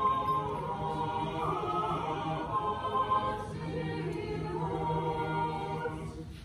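Church choir singing an unaccompanied Orthodox liturgical chant in long held chords, with a short break in the phrase about halfway.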